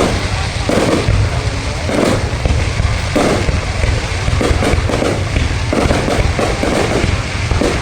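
Fireworks display with shells bursting in quick succession, a continuous run of booms and crackle with no pause.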